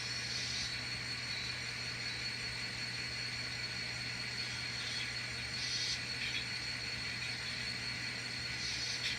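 Steady low electrical hum with a faint even hiss and no distinct events: background room tone.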